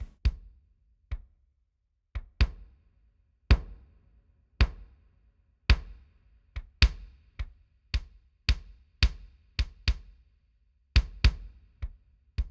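Recorded kick drum track played back on its own: an uneven pattern of single sharp hits, with its high frequencies boosted by a parametric EQ.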